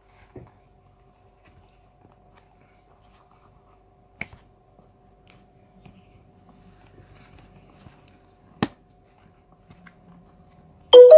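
Quiet handling with two sharp clicks, then near the end a phone's notification alert sounds loudly as a quick run of short pitched tones, one of a stream of incoming notifications.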